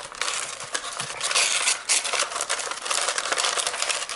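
Printed wrapping paper crinkling and rustling as hands pull it open inside a cardboard box: a dense run of crisp crackles.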